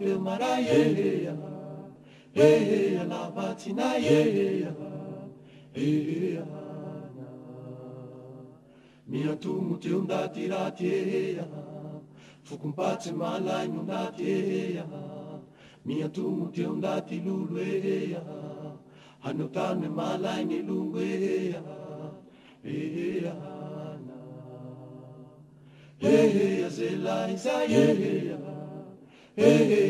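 Slow, chant-like hymn singing in long drawn-out phrases a few seconds each, with short pauses between, over a steady low held note.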